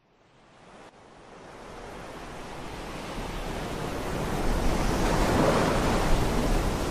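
A steady rushing noise of wind and sea, fading in from silence and growing steadily louder over several seconds.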